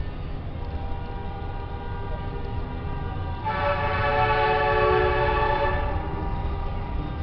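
Vehicle horn held for about two seconds, a few seconds in, over a steady rumble of street traffic.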